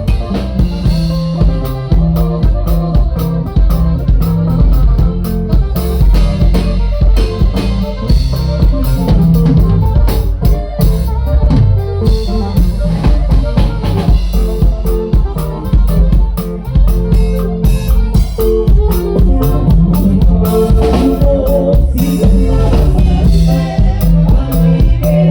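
Norteño band music, instrumental, with a steady drum-kit beat under plucked strings.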